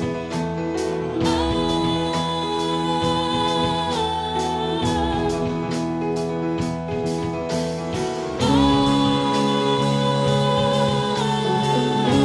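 Band playing an instrumental passage of an original song: long held melody notes over a steady beat, growing louder about eight seconds in.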